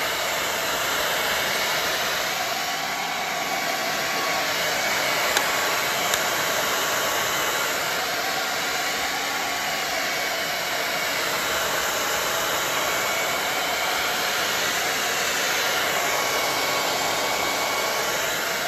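Handheld hair dryer running steadily, blowing on a toddler's hair, its rushing air shifting slightly in tone as it is moved about the head.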